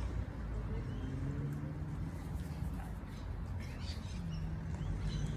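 Outdoor ambience: a low steady hum with a few faint, short bird chirps.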